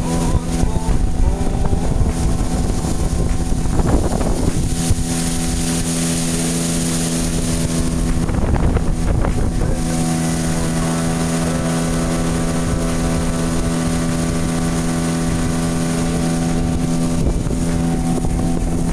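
An engine running at a steady speed, with wind on the microphone that swells for a few seconds in the middle.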